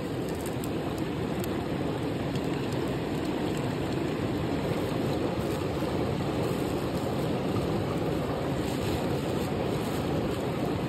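Steady rush of a fast-flowing river, an even noise that holds at the same level throughout without breaks.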